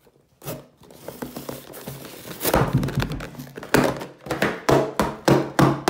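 A butter knife scratches along the taped seam of a cardboard shipping box. From about halfway in comes a quick run of sharp thunks, several a second, as the box is handled and knocked about.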